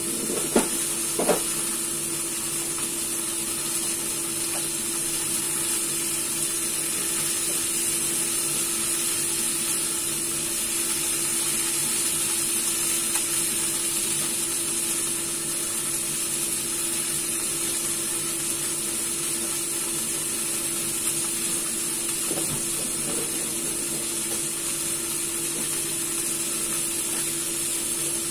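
Marinated chicken wings sizzling steadily as they fry in oil in a pan, with a few light knocks in the first second or so as pieces are laid in. A steady low hum runs underneath.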